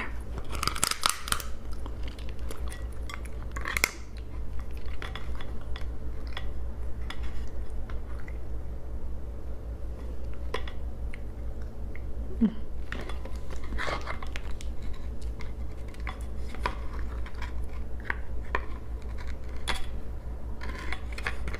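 Raw crab being prised apart and eaten by hand: scattered cracks and clicks of the shell as the top shell is pried off, with chewing and the odd clink of a dish or utensil, over a steady low hum.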